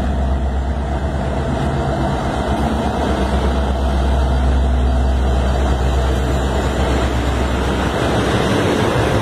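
Diesel-electric freight locomotives passing close by at low speed, their engines running with a loud, low, steady drone.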